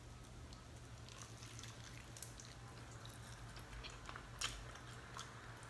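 Faint chewing and smacking mouth sounds of someone eating fried chicken, small wet clicks scattered throughout with a slightly louder one about four and a half seconds in, over a low steady hum.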